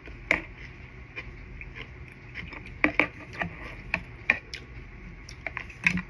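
Close-up eating mouth sounds: irregular wet clicks and smacks of a person chewing, a dozen or so in the span, the sharpest about a third of a second in, around the three-second mark and near the end.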